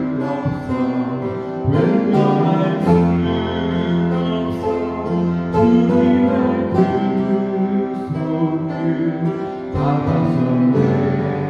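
Upright piano playing the accompaniment of a Korean gospel praise song, with a man's voice singing along at times.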